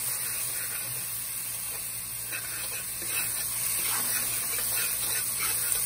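Chopped onions, pepper and garlic sizzling in hot coconut oil, a splash of water in the pan hissing off as steam, while a spatula stirs and scrapes them around the pan.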